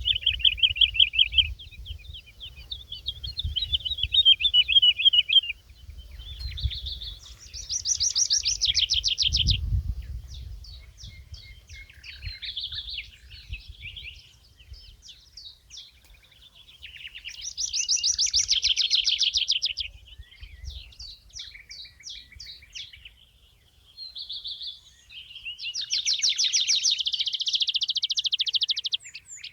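Songbirds singing: loud rapid trilled phrases about every nine or ten seconds, with shorter chirps and warbles between them. A faint low rumble runs underneath.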